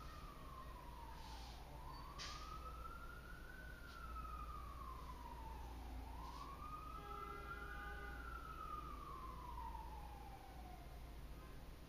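Faint emergency-vehicle siren wailing, its pitch slowly rising and falling about once every four seconds, then fading out near the end.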